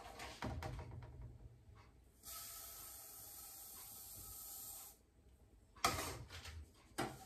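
Sesame seeds poured from a steel measuring cup into a saucepan, a steady rush of grains lasting about two and a half seconds. Before it, the cup scrapes through the seeds on a metal tray. Near the end the cup knocks twice on the metal tray.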